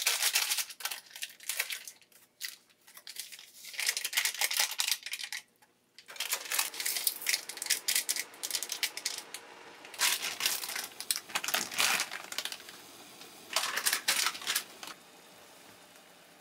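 Plastic instant-noodle packaging crinkling and tearing in several bursts, with a faint steady hiss underneath from about six seconds in.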